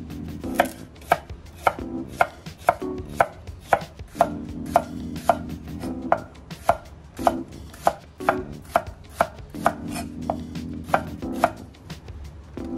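Knife chopping food on a cutting board, steady sharp strokes about two a second.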